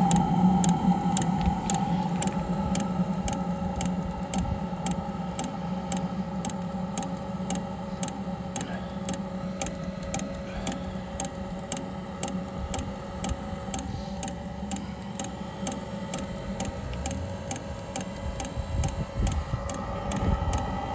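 Espar Hydronic diesel coolant heater running after it has fired: its fuel metering pump ticks steadily about twice a second over the steady whir of the burner's combustion blower.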